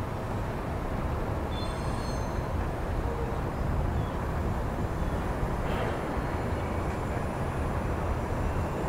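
Vintage New York City subway train rolling slowly through a rail yard, heard from a distance: a steady low rumble, with a brief faint high squeal about two seconds in.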